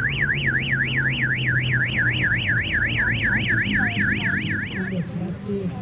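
Electronic warbling alarm tone, sweeping rapidly up and down about four to five times a second, that cuts off sharply about five seconds in, over the steady low hum of an idling car engine.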